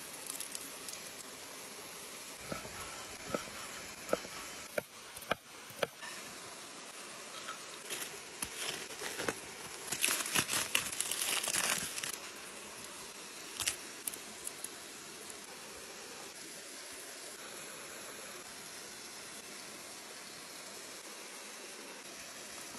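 Aluminium foil crinkling and tearing as it is peeled off a baked potato, densest and loudest for about two seconds near the middle. Earlier come scattered sharp taps and clicks from a metal cleaver working on a stone, over the steady noise of a small waterfall.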